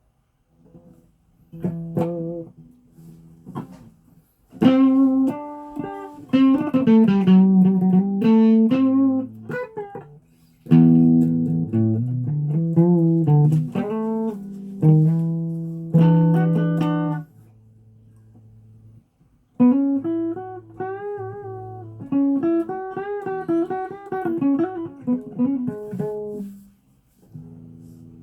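Guitar played with plucked notes in uneven phrases, stopping for a couple of seconds midway and again near the end, with some notes bending in pitch.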